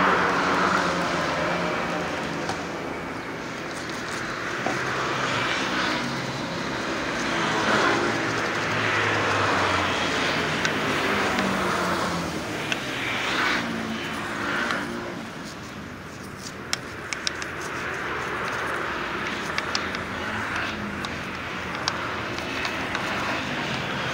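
Road traffic passing, a broad rushing noise that swells and fades several times, with a few short light clicks in the second half.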